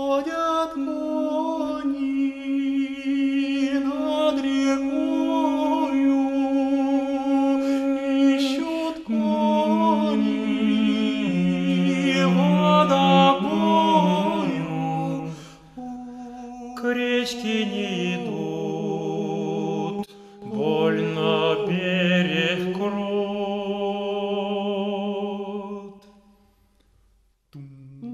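Male vocal ensemble singing a Russian folk song in close harmony, in slow phrases of long held chords. The singing breaks off briefly near the end before the next phrase begins.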